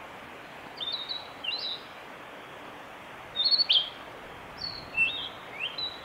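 Male narcissus flycatcher singing: about five short phrases of clear whistled notes, several of them sliding up or down in pitch, over a steady background hiss.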